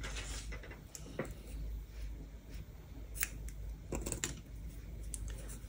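Scissors snipping through cotton crochet yarn, a few short sharp clicks about three and four seconds in, after soft rustling as the yarn is pulled out long.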